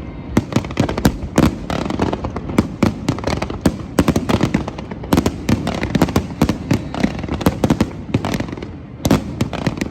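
Fireworks display: a dense, irregular run of sharp cracks and bangs, several a second, over a continuous rumble of bursting shells.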